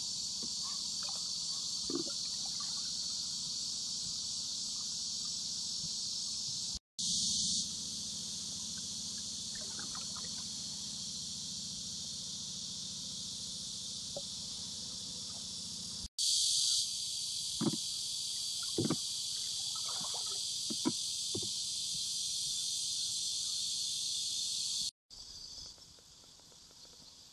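A steady, high-pitched chorus of summer insects, broken by three brief dropouts and much fainter near the end. A few soft knocks sound in the second half.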